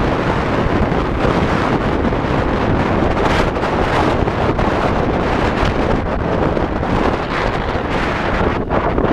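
Loud wind buffeting on the microphone of a camera mounted on a moving dirt bike, with the bike's engine running underneath.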